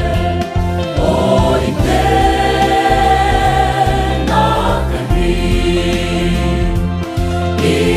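Mixed choir of women and men singing a gospel hymn in harmony, holding long notes that change every few seconds.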